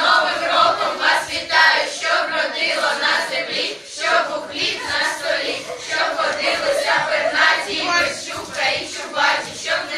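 A group of children singing together in chorus.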